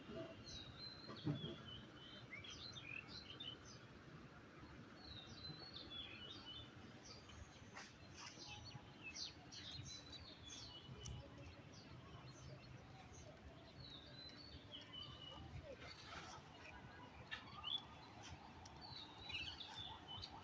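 Faint chirping of small birds, many short calls overlapping, with a low thump about a second in and another near the end.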